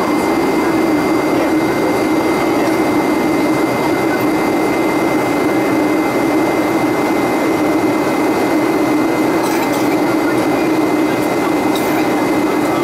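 Steady cabin noise inside a Boeing 757 on approach: the rush of airflow and the drone of the wing-mounted jet engine, with a thin high whine held steady.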